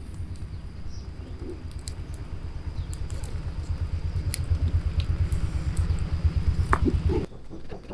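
Low, fluttering rumble of wind buffeting the microphone, growing louder and cutting off abruptly near the end. Faint crackles and ticks from a small wood fire grilling mussels sound over it, with a thin steady high whine beneath.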